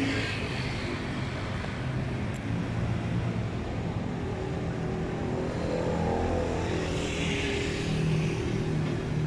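Street traffic: motor vehicles running and passing close by, a steady low engine drone with noise swelling near the end.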